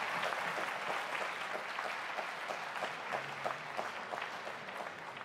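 Audience applauding in a snooker arena, a dense patter of hand claps that thins out and fades near the end.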